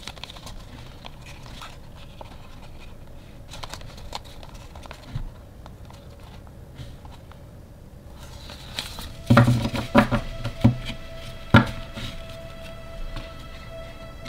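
Cardboard photo tags being handled: light rustling and shuffling, then a few sharp taps in the second half as they are set down on a wooden tabletop. Soft background music plays under it.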